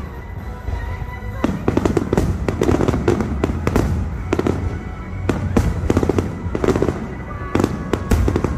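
Fireworks finale: aerial shells bursting in quick succession, many sharp bangs over a constant low rumble.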